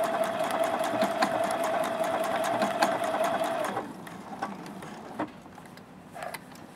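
Juki F600 sewing machine stitching an appliqué stitch at a steady speed, a motor whine with rapid needle clicks, which winds down and stops a little under four seconds in. A few faint clicks and handling sounds follow.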